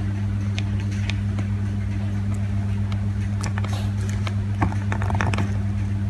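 A steady low hum throughout, with short faint clicks of the Nokia 3220's keypad buttons being pressed, coming more often in the second half.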